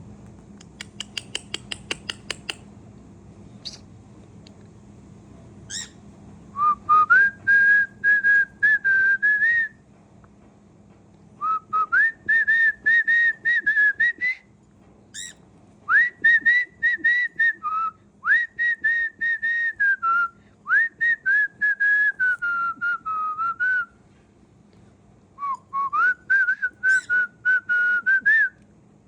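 Cockatiel whistling a tune in repeated phrases of quick, choppy notes, with short pauses between phrases. A quick run of about ten clicks comes near the start.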